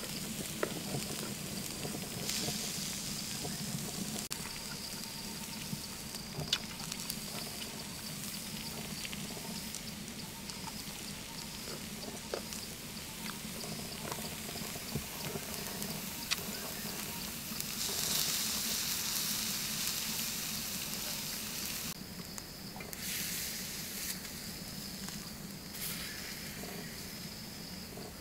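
Pig's liver sizzling on a hot cooking rock, a steady hiss with scattered sharp pops that grows louder for a few seconds past the middle. A thin, steady high insect trill runs behind it.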